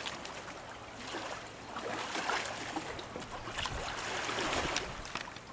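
Water lapping and splashing around a small boat, with a few light knocks.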